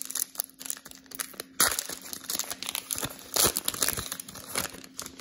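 Foil wrapper of a Panini Prizm football card pack being torn open and crumpled by hand: irregular crinkling, with two louder rips about a second and a half and three and a half seconds in.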